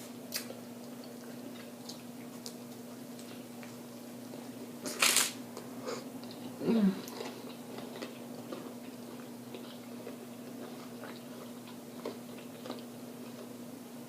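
Close-miked eating of crunchy fried food: chewing and crunching with small wet mouth clicks, and a louder crunch about five seconds in. A steady low hum runs underneath.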